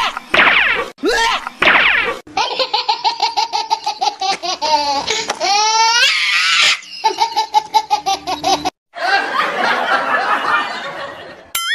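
Laughter sound effects dubbed over the footage. A few falling laughs come first, then long runs of rapid, even 'ha-ha-ha' laughing, and a rougher, noisier stretch of laughter near the end.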